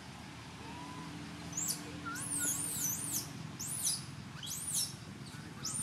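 A run of about five high-pitched whistled animal calls, each sweeping up and then down, starting about one and a half seconds in. A faint steady low hum lies beneath them for the first half.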